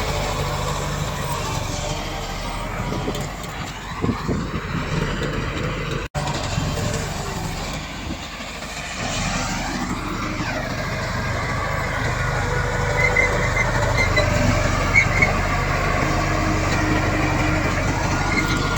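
Bulldozer's diesel engine running steadily while it works. A few short high squeaks come a little past the middle.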